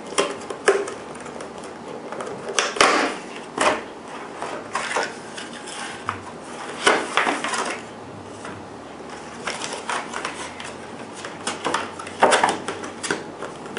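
Clear rigid plastic clamshell packaging being pried open and handled, with irregular crackles and clacks, loudest in a few short clusters.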